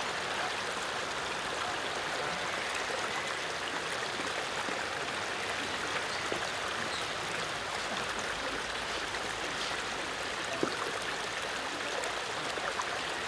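Running water of a garden stream: a steady, even rush.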